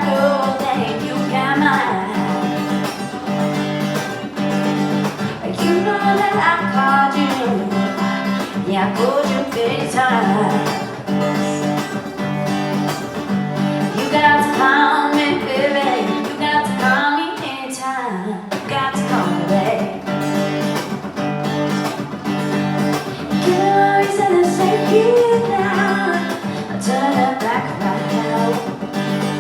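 A live song: a voice singing a melody over a strummed acoustic guitar.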